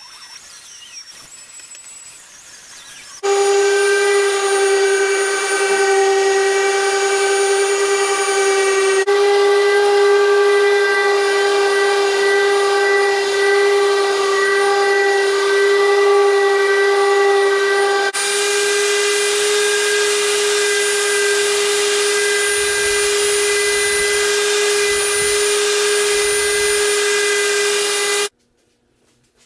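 Random orbital sander running on a wooden tabletop: a loud, steady whine with a hiss of sanding. It starts suddenly about three seconds in, shifts slightly twice, and stops suddenly near the end.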